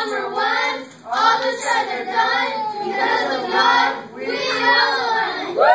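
A group of children chanting a sing-song tribe cheer in unison, in phrases with short breaks about a second in and about four seconds in, rising into a loud shout right at the end.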